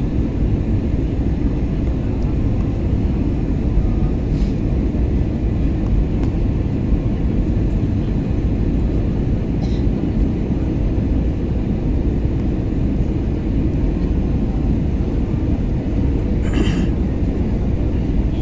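Steady low rumble of an airliner's engines and rushing air heard inside the passenger cabin during the descent, with a few faint brief clicks.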